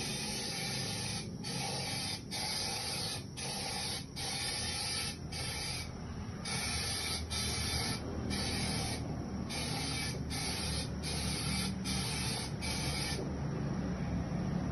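Powder coating spray gun hissing with compressed air. The hiss breaks off for a moment roughly once a second and stops near the end, over a low steady hum.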